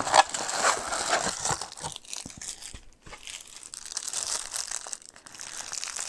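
Parcel packaging crinkling and tearing as it is opened by hand, in two spells of rustling with a short lull about halfway.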